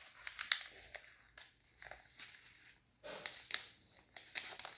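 A sheet of origami paper being pleated and creased by hand: a quiet string of short, crisp paper crackles and clicks.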